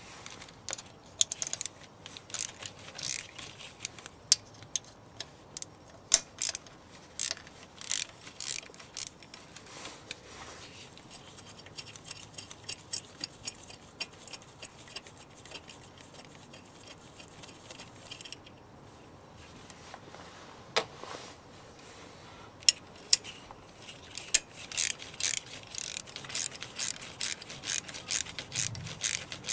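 Socket ratchet wrench clicking in quick runs while undoing 10 mm bracket bolts, with short pauses between runs.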